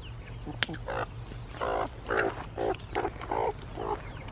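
Hens clucking: a run of short, low, rough calls about two a second. A single sharp click comes about half a second in.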